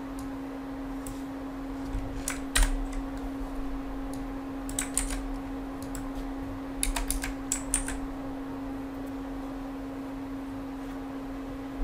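Computer keyboard keystrokes, a few scattered groups of clicks, over a steady low hum.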